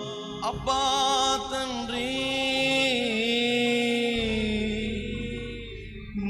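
Telugu Christian worship song: a voice holding long, wavering sung notes over musical accompaniment.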